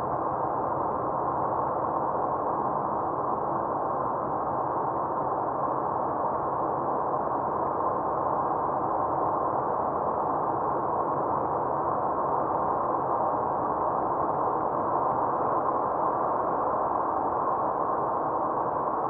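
Steady, muffled in-car driving noise, with tyres on a snow-covered road and the engine, picked up by a dashcam's microphone inside the cabin.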